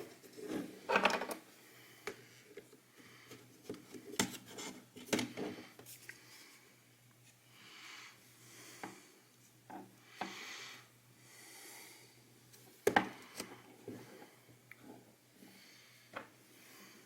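Plastic housing of a computer mouse being handled and pried apart with a small tool: scattered clicks, taps and short scrapes of plastic, the loudest click about three-quarters of the way through.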